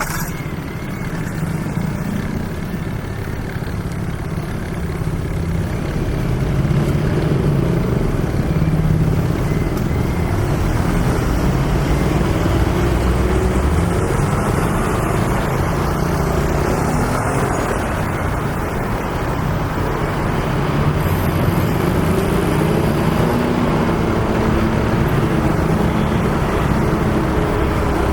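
Steady road traffic on a busy city street, with the running engines of passing cars and heavier vehicles.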